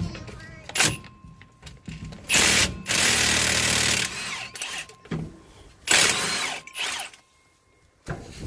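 Handheld power tool run in bursts on the carrier bearing support bolts, unfastening them: one run of about two seconds, then two shorter runs near the end, with clicks of metal between.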